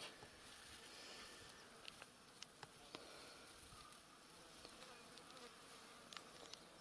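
Faint buzzing of flying insects, with a few light clicks scattered through it.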